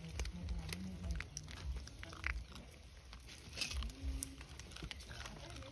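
Macaque chewing dry grains, with scattered small crunching clicks and dull low thumps.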